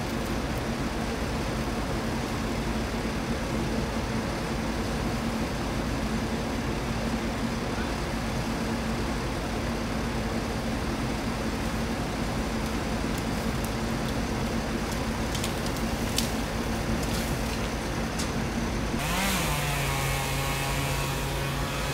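Bucket truck's engine running with a steady hum. About nineteen seconds in the note briefly rises and then settles at a lower pitch, with a higher whine on top.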